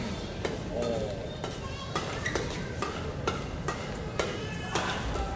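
Badminton rally: sharp racket strikes on the shuttlecock and players' footfalls, about two knocks a second, with short shoe squeaks on the court floor over a low crowd murmur.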